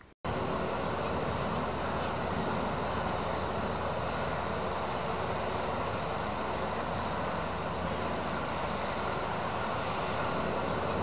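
Steady rushing background noise, like outdoor traffic ambience, that cuts in abruptly just after a moment of silence. A few faint, short high chirps sound over it.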